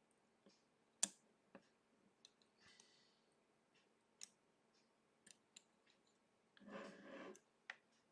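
Small metal clicks and taps of watchmaker's tools handling the parts of a pocket watch movement, about half a dozen scattered through otherwise near-quiet, the sharpest about a second in. A short soft hiss sounds near the end.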